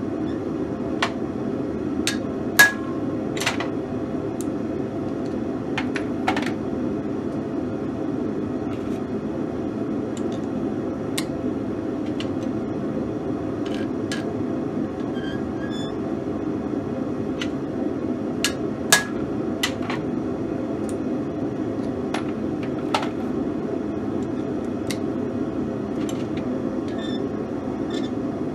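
Steady rushing noise of a running forge, with scattered sharp metallic clicks and taps as steel and tools are handled on the anvil.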